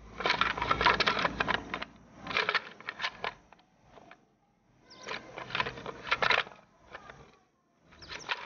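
Small seventh-generation Luban stool, a wooden folding stool, being worked by hand: its wooden parts clack and slide against each other in several bursts of rattling with short pauses between.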